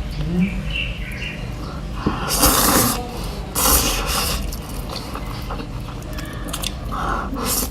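Slurping noodles: two long, wet slurps, about two and a half and three and a half seconds in, with smaller chewing and mouth noises between them.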